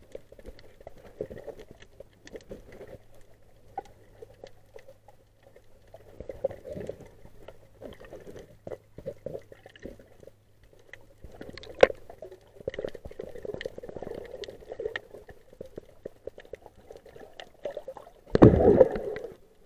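Muffled water sound picked up by a camera underwater while snorkeling: sloshing and gurgling with many scattered clicks and crackles, and a louder rush of water near the end.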